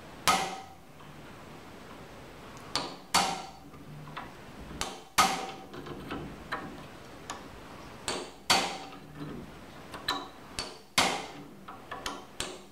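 Hammer blows on a steel pin punch, driving a stuck piece of sheared rivet out of a cutter-bar blade strip held in a steel bench vise. Sharp metallic strikes with a short ring come every two to three seconds, with lighter taps between them that come quicker near the end.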